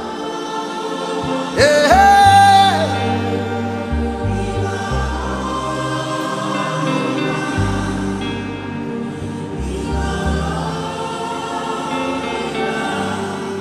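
Gospel worship music: choir singing over sustained keyboard chords and a moving bass line. About two seconds in, one loud lead note slides up and holds briefly.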